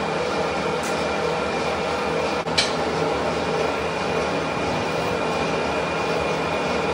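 Manual metal lathe running with a steady mechanical hum and several steady whining tones from its motor and gearing. About two and a half seconds in, the sound drops out for an instant, then comes a short high-pitched scrape.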